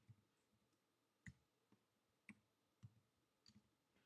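Faint computer keyboard keystrokes, about six single key presses spaced irregularly, roughly a second apart.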